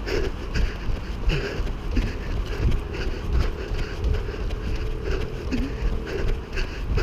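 Wind rumbling on the microphone of a camera carried by a jogger, with the runner's footfalls landing about twice a second.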